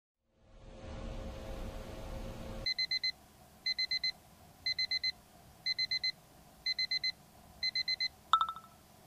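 Ceiling fan whirring low and steady for the first two or so seconds. Then a smartphone alarm beeps in groups of four quick high beeps, once a second, six times, and is cut off with a short click as it is silenced near the end.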